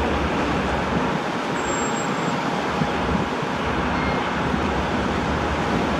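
Brødrene Aa 42 m carbon-fibre catamaran ferry's engines and KaMeWa waterjets running steadily while it manoeuvres at the berth, a constant low hum under the noise of water churning at the stern.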